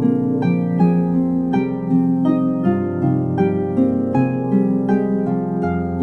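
Lyre music: plucked strings playing a flowing melody of ringing notes, a few a second, over low notes that are held underneath and change every second or two.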